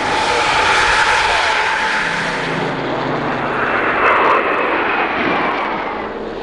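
Aircraft engines running loud: a dense rushing noise with a whine that sinks slowly in pitch over the first two seconds, swelling again about four seconds in and then fading.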